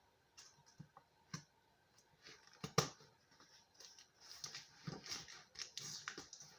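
Hands handling and opening a cardboard Funko Pop box: scattered light clicks, taps and rustling, with a sharper click about three seconds in and busier rustling near the end.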